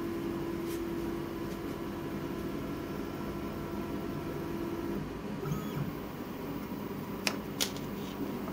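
Stepper motors of an OpenBuilds 1515 desktop CNC router giving a steady whine as the Z axis lowers the bit slowly onto a touch probe during a probing cycle; the whine cuts off about five seconds in. Two light clicks follow near the end.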